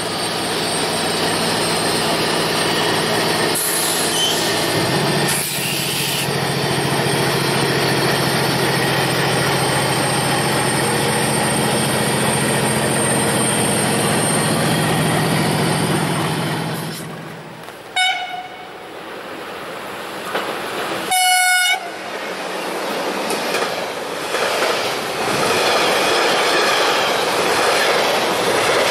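MLW MX-627 diesel locomotive engine running with a steady low drone as it moves off, its pitch dropping slightly about five seconds in. After a break, an approaching locomotive gives two horn blasts, a short one and then a longer, louder one, and a container freight train rolls past with wheels clattering over the rail joints.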